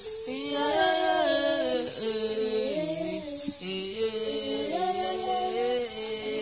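African Pygmy polyphonic singing: several voices sing different melodic lines at once, unaccompanied, over a steady high hiss.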